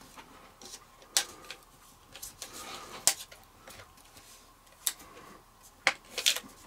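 Adhesive wood-grain contact paper being pulled over and pressed down onto a wooden trim strip by hand: soft rustling with scattered sharp crackles and taps, several close together near the end.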